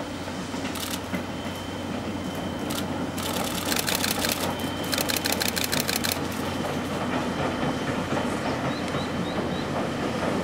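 JNR Class C58 steam locomotive hauling a train across a steel bridge: a steady rumble with a fast rhythmic beat of exhaust and wheel clatter that comes and goes.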